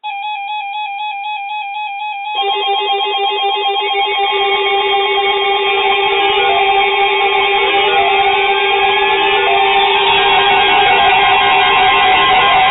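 Overlapping electronic alarm tones from weather alert radios sounding for an incoming severe thunderstorm warning. A single warbling tone plays first. About two and a half seconds in, several more steady and beeping tones join and it gets louder, and one tone glides up in pitch partway through.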